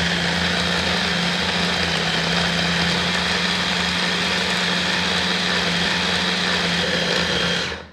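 Cookworks hand blender running steadily on its chopper-bowl attachment, mincing raw chicken breast with bread and spices; the motor cuts off near the end.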